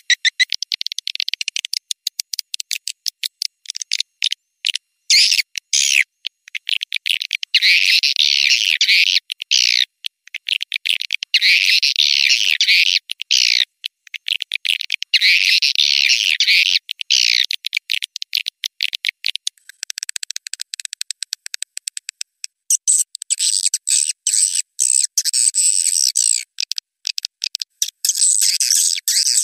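Swiftlet call lure recording (suara panggil walet): rapid trains of high, clicking and chirping swiftlet calls, with dense chittering bursts every few seconds in the middle. A thin high steady tone runs under the calls from about two-thirds of the way in. It is a call track made to draw swiftlets into a nesting house.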